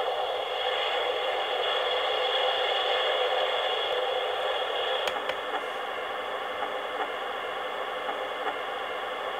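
A Skip Hop Moonlight & Melodies elephant nightlight soother plays its ocean-waves sound, a steady hiss from its small built-in speaker. About five seconds in there is a click, and it switches to its white-noise-with-heartbeat sound, which is a little quieter.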